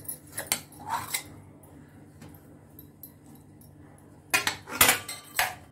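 Brass sev press (manual noodle press) being handled, its metal parts knocking and clinking: a few light taps in the first second, then a louder run of metallic clatter about four seconds in.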